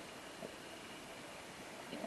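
Faint steady underwater hiss picked up between a scuba diver's breaths, with one small click about half a second in.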